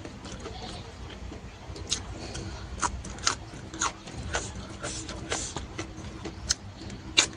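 A person chewing smoked beef close to the microphone, with sharp, irregular mouth clicks and smacks about once a second; the loudest comes near the end.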